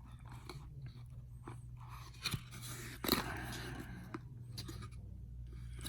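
A cardboard battery box being opened and its packaging handled: scattered scrapes, clicks and crackles, with the loudest crunching rustle about three seconds in.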